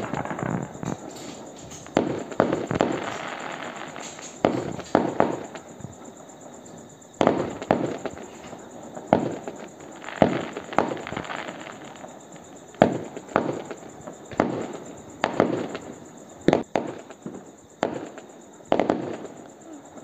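Fireworks and firecrackers going off: a long string of sharp bangs at irregular intervals, some in quick pairs, each trailing off, over a continuous crackling hiss.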